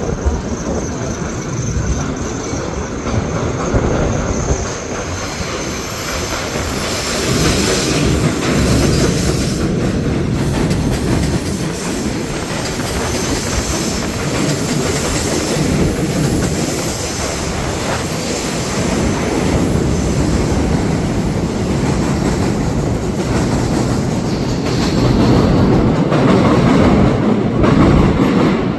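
R211 subway train running past, its wheels clattering over the rail joints with a steady rumble, and a thin high wheel squeal over the first several seconds.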